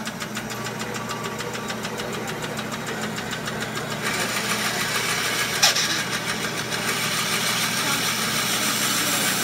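Vertical bandsaw running and cutting through the metal tubing of a robot chassis: a steady motor hum under the hiss of the blade, which grows louder about four seconds in, with one sharp click near the middle.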